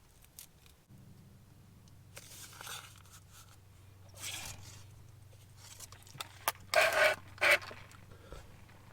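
Paper or wrapping being torn and scraped in short bursts, two louder ones near the end, over a faint low steady hum.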